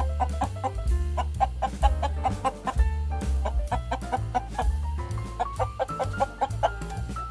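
Chickens clucking in quick, repeated short calls over background music with a steady beat and bass line.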